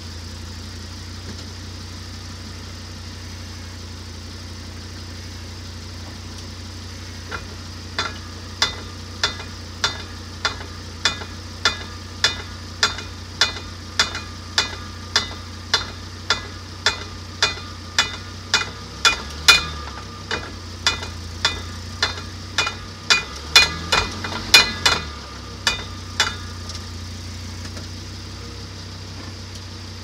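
Repeated sharp clicks from a 4x4's drivetrain under the floor, a little under two a second, over the steady low hum of the running vehicle. They start about a quarter of the way in, grow louder and less even, and stop a few seconds before the end. This is the odd noise that the owner suspects comes from the differential.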